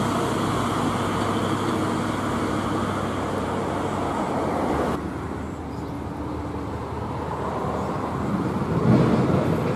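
Heavy truck traffic: diesel truck engines and tyre noise on a highway, the sound changing abruptly about five seconds in to quieter traffic around trucks at a toll gate. An engine grows briefly louder near the end.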